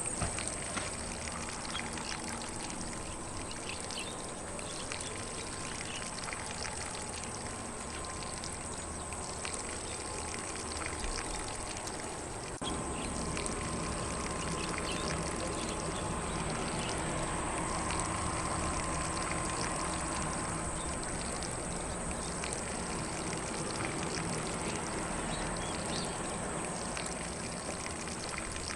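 Lawn sprinkler spraying water across grass as a steady hiss, with faint distant birdsong and a steady high-pitched tone above it. About halfway through, the spray gets slightly louder.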